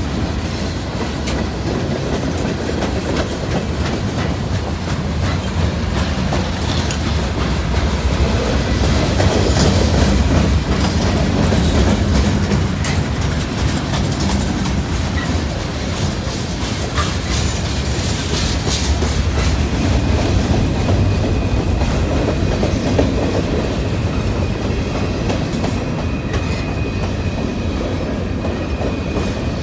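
Freight train rolling past: a steady rumble of wheels on rail with clicking over the rail joints. A faint high squeal comes in during the last third.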